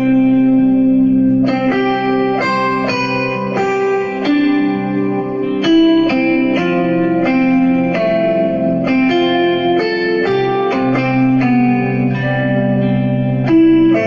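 Samsung smartphone ringtone playing: a melodic tune of plucked, guitar-like notes over sustained low notes.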